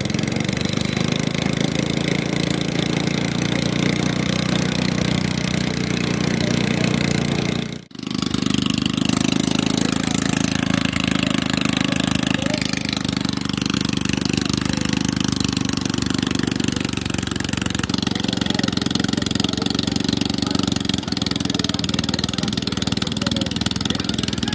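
Small engine of a portable rail-track drilling machine running steadily. The sound drops out for a moment about eight seconds in.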